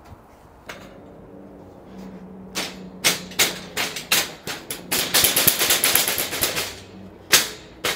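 White metal wire-shelf stand knocking and clattering as it is shifted into place: a run of sharp knocks, a dense rattling scrape in the second half, and one loud knock near the end.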